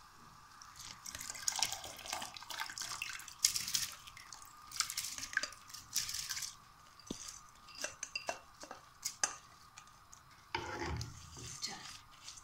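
Soaked rice poured from a bowl into a pot of boiling water, splashing in bursts for several seconds. Then a spatula scrapes and taps in the bowl to push out the last grains.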